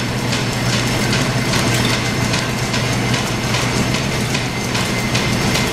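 Belt-driven metal lathe running steadily off a line shaft, its flat belt and pulleys turning after a lever-operated clutch was engaged. A steady mechanical hum with a regular clicking, about three a second.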